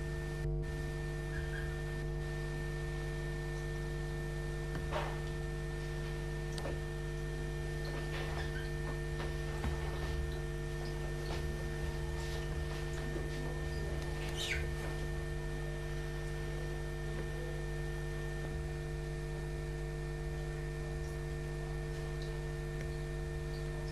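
Steady electrical mains hum throughout, with a few faint, short chirps of budgerigars scattered through the first fifteen seconds or so.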